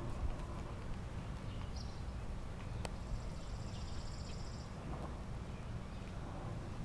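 Faint sounds of seven-week-old Cairn terrier puppies at play, with a single sharp click about three seconds in over a steady low rumble.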